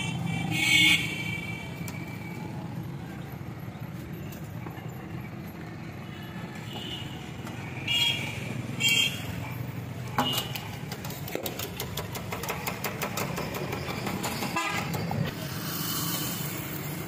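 Roadside traffic with vehicle horns honking: a short loud honk about half a second in, two more around eight and nine seconds, over a steady engine rumble. A quick run of clicking follows from about ten to fifteen seconds in.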